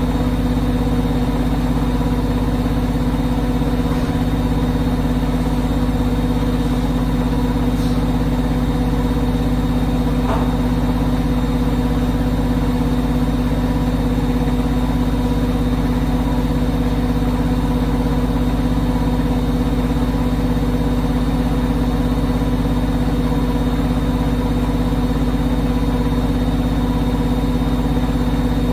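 Hotpoint WM63P front-loading washing machine spinning at a steady speed: an even motor whine over a low drum rumble.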